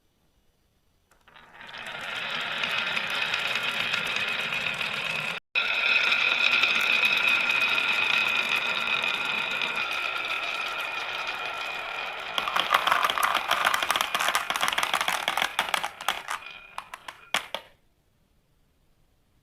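Marbles rolling down a marble-run track: a steady rolling rattle that starts about a second in, stops for an instant near the five-second mark, becomes a louder clatter about twelve seconds in, and ends with a few separate clicks.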